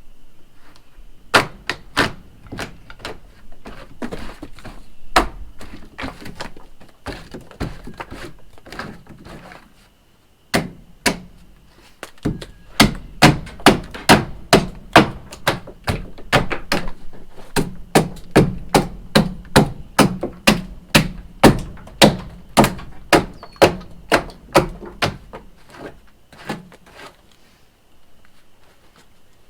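Repeated blows of a striking tool on wood: scattered strikes at first, then after a short pause a steady run of about two blows a second that stops a few seconds before the end.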